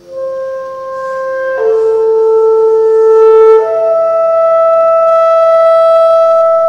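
Contemporary chamber music: an ensemble holding long, steady notes in several overlapping pitches, led by a wind-instrument tone. New notes take over about a second and a half in and again past the middle.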